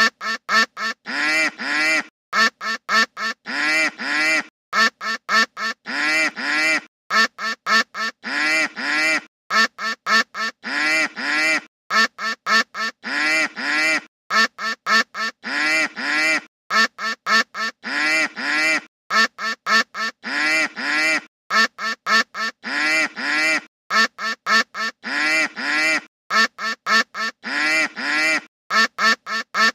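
Duck quacks sequenced into a looping ringtone: a short phrase of quick quacks ending in a couple of longer ones, repeated over and over about every two seconds.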